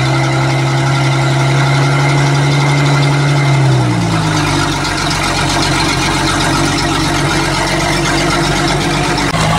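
A sterndrive boat's inboard marine engine running on land, with a garden hose supplying cooling water to its outdrive. It idles steadily, and its speed rises a little about four seconds in, then holds at a slightly faster idle.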